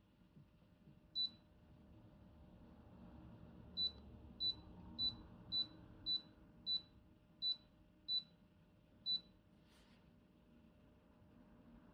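Electronic beeps from a humidifier's control panel, short and high, each at the same pitch. One comes about a second in, then nine more follow roughly every half second to second, as its buttons are pressed.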